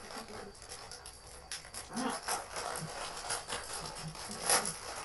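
Lay's plastic chip packets crinkling and crackling as they are pulled open and handled, in a run of quick irregular crackles with a louder crackle about four and a half seconds in.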